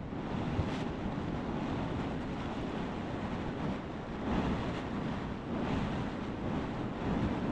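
Ocean surf washing steadily, with wind buffeting the microphone; the wash swells a little a few times.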